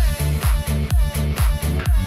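Background dance music with a steady, heavy kick drum, about two beats a second.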